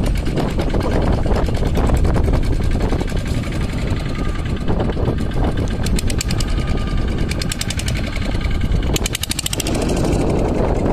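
Small fishing boat's outboard motor running steadily at low speed, with a fast, even ticking that stands out about six seconds in and again about nine seconds in.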